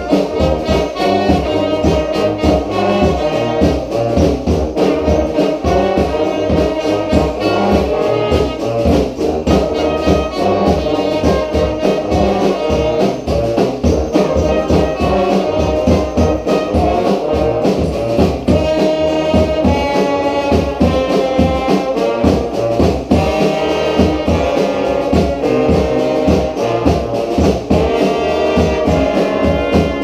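Street brass band playing an upbeat tune together: trombones, trumpets, saxophones and sousaphone over a steady bass and snare drum beat.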